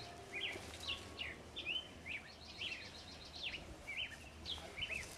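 Small birds chirping: many short calls that sweep up and down in pitch, coming every half second or so, over a low steady rumble.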